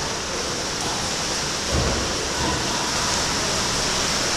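Water splashing and churning under kayak paddles in an indoor pool, a steady wash of noise, with a dull thump about a second and a half in.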